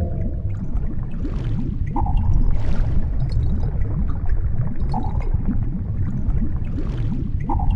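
Underwater ambience: a deep, steady rumble with gurgling water, and a short mid-pitched tone three times, roughly every two and a half seconds.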